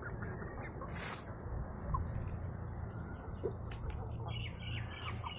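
Backyard chickens foraging on scattered grass: faint chirps and small pecking clicks, with a brief rustle about a second in, over a steady low rumble.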